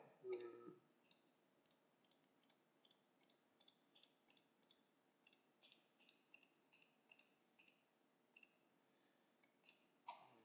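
Faint computer mouse clicks in a quick irregular series, about three a second, each click placing another point of a polyline.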